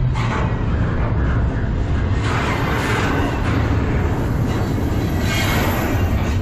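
Double-stack intermodal freight cars passing close by at speed: a steady loud rumble and rattle of steel wheels on the rails. The higher-pitched rattle swells about two seconds in and again near the end.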